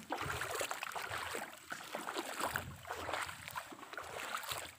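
Footsteps splashing through shallow river water and onto wet ground, a rough wash of splashes that swells and dips about once a second.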